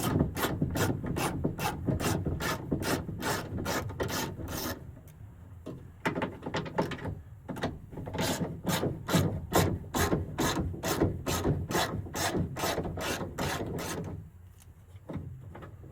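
Ratchet socket wrench clicking rapidly as 10 mm bolts are backed out, about five clicks a second, with a short pause about five seconds in before the ratcheting resumes, then dying away near the end.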